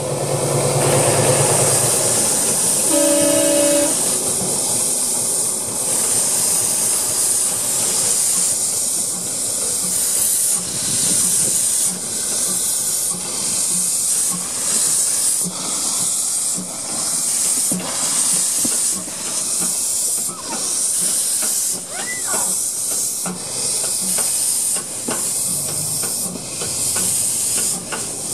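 Narrow-gauge steam locomotive blowing steam from its cylinder drain cocks: a loud hiss that swells and fades about once a second. A whistle sounds briefly near the start.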